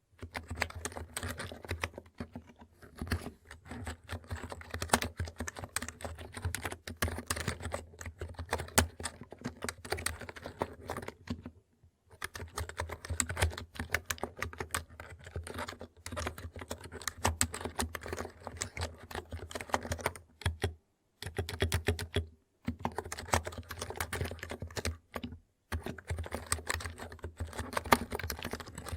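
Continuous typing on a NIZ Plum electrostatic capacitive (non-contact) keyboard: a dense run of key strokes, broken by a few short pauses.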